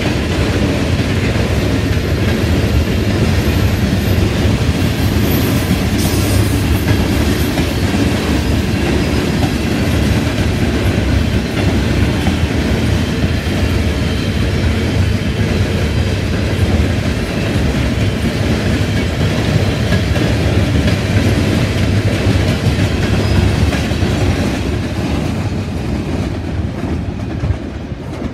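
Norfolk Southern coal train's hopper cars rolling past on the rails, a steady loud wheel-on-rail noise that eases slightly near the end.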